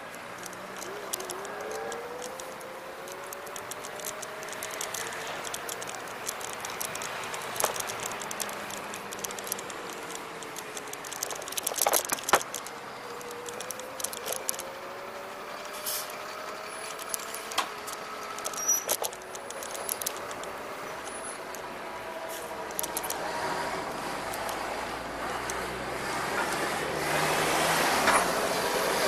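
Riding noise from an Xplorer Ambassador electric scooter: a faint motor whine rising and falling in pitch with speed, over wind and tyre hiss, with scattered rattles and clicks as the scooter rolls over bumps. Passing traffic grows louder near the end.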